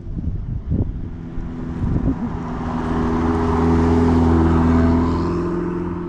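A sports car driving past with its engine running, the note building to its loudest about four to five seconds in and then fading as it goes by.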